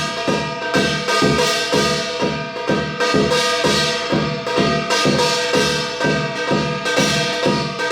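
Korean shamanic percussion playing the eight-measure yanggojang rhythm: quick, even strokes, several a second, over a steady ringing tone.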